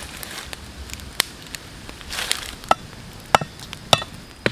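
Machete blade chopping at a thin wooden stick, sharp knocks with a brief ringing: one about a second in, then four more about every half second toward the end.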